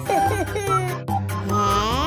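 Light, playful background music with a stepping bass line, with short sliding cartoon sound effects laid over it.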